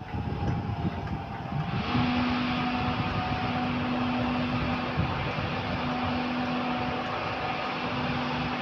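Class 91 electric locomotive humming steadily over a wash of fan-like machine noise, the hum coming in about two seconds in as it prepares to depart.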